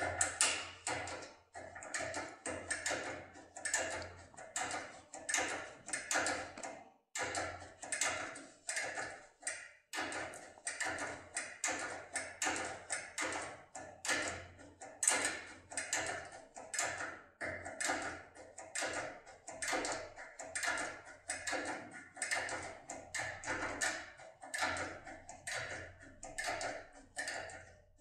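Repeated light metallic clicks and taps, about two a second, from a Topolino decoder tool being pressed and worked inside a lock cylinder during impressioning.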